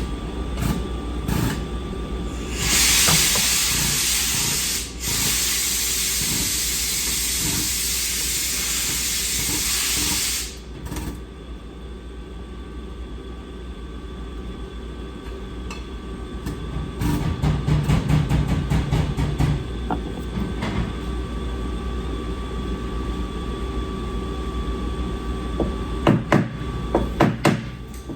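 A loud, steady hiss lasting about eight seconds, cut off briefly partway through, followed by a quieter stretch and then a run of sharp metal clinks and taps near the end.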